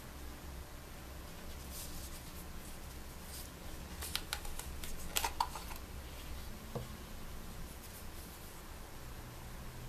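Puukko knife being drawn from its leather sheath: a cluster of short clicks and scrapes about four to six seconds in, with light handling rustle of the leather before it.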